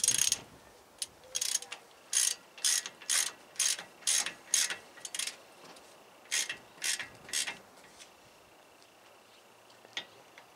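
Hand ratchet clicking in short strokes, about two a second, as it turns a wheel-stud installer tool to draw a new stud into the hub. It pauses after about five seconds, makes three more strokes, then stops.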